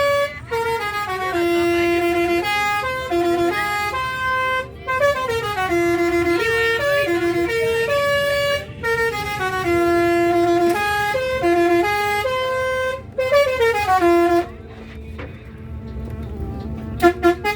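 Basuri telolet musical air horn on a bus playing a melody of held notes that step up and down in pitch. About fourteen seconds in the tune stops, leaving a low rumble, and short horn notes return near the end.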